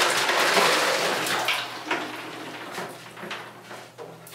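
Ice cubes poured from a bowl into bathwater: a splashing pour that tapers off after about two seconds, then a few scattered clinks and splashes.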